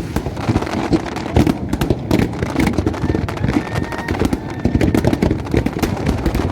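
Fireworks going off in quick, irregular succession: many sharp bangs and crackles over a dense low rumble.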